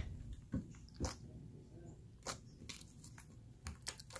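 Fluffy, jiggly slime being squished and poked by hand: scattered small wet pops and clicks at irregular intervals.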